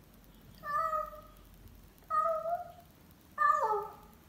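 A young cat meowing three times, about a second apart, each call about half a second long; the last one drops in pitch at its end.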